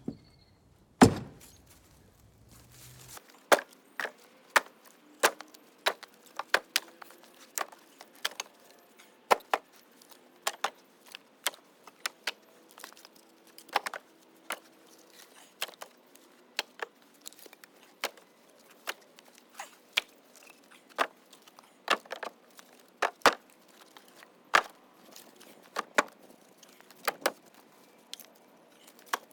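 Split firewood knocking and clacking as pieces are tossed one after another into a poly cart, a sharp knock every second or so, the loudest about a second in.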